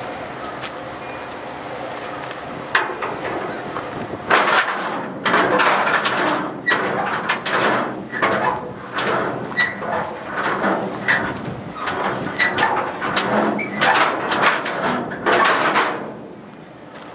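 Footsteps crunching on gravel track ballast, with scraping and clinking of a steel bar against the hopper gate's lock lever, in an irregular run of sounds that dies away near the end.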